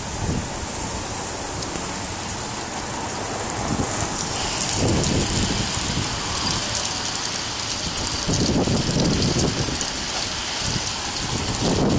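Storm wind gusting against the microphone, with a steady hiss of rain setting in about four seconds in.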